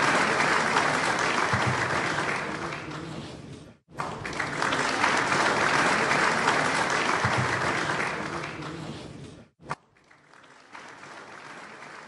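Audience applause, light clapping, in two rounds: the first fades and cuts off about four seconds in, the second starts straight after and dies away near the end, followed by a click and a faint steady hiss.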